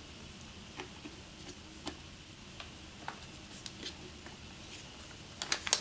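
Scattered light clicks and taps of plastic as a small battery pack and cables are handled and fitted onto a drone remote controller, with a quick cluster of sharper clicks near the end.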